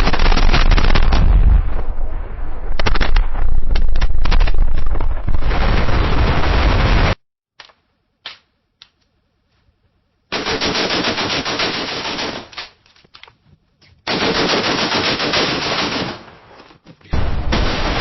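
Battlefield gunfire: dense, rapid automatic machine-gun fire with overlapping shots, which stops abruptly about seven seconds in. A few seconds of near silence broken by a few single shots follow, then more bursts of automatic fire that thin out into gaps, and dense firing starts again near the end.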